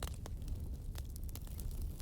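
Burning logs crackling: several sharp snaps and pops scattered over a low, steady rumble of the fire.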